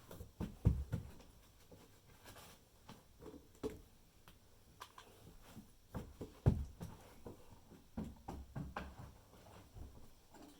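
Irregular knocks and thumps with lighter taps and rustles, from handling materials during floor repair work. The loudest thumps come about half a second in and about six and a half seconds in.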